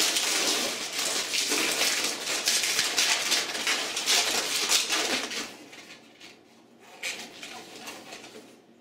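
Latex 260 modelling balloons rubbing and squeaking against each other and the hands as they are twisted and handled, dense for about five and a half seconds, then much quieter with a brief squeak near seven seconds.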